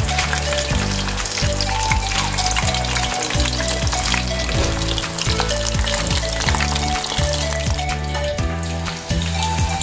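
Tempura-battered shrimp deep-frying in a pot of hot oil: a steady sizzle full of small crackles, with background music playing underneath.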